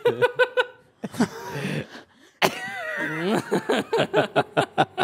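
People laughing in rapid, rhythmic bursts, with a longer drawn-out laugh in the middle.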